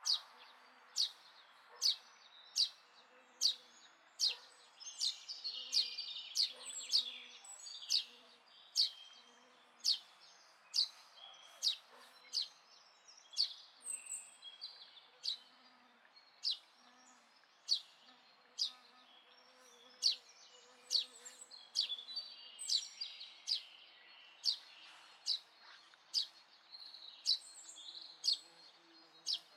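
Indian robin calling: a sharp, high note repeated steadily about once a second, with fainter chirping of other birds between the calls.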